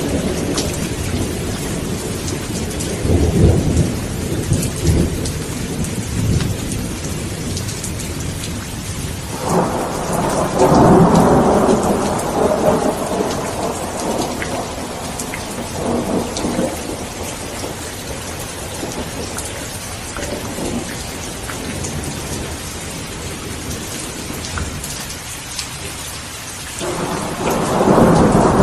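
Steady rain falling with rolling thunder. A low rumble runs through the first few seconds, a louder peal breaks in suddenly about a third of the way in and rumbles away over several seconds, and another peal starts near the end.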